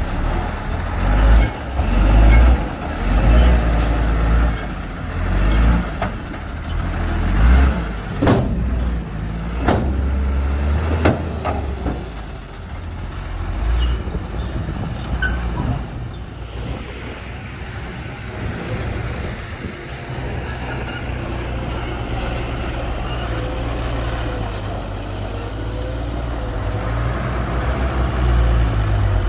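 Heavy diesel machinery working, a bulldozer and dump truck. For the first half the engine sound surges heavily, with several sharp knocks. From about halfway it settles into a steadier low engine drone.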